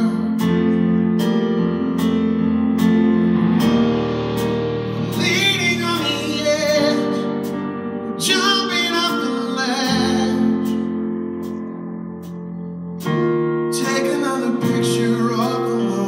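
Live band music: a male singer's voice over guitar and keyboard, with short percussive hits keeping a steady beat. The sung phrases come in the middle and again near the end, with held instrument chords between them.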